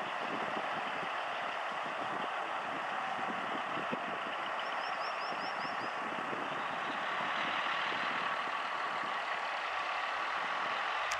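Western Star 6900XD heavy truck with a CAT C15 inline-six diesel driving slowly. Its engine and tyre noise is steady and grows a little louder in the second half as it comes closer. A brief run of faint high chirps comes about halfway through.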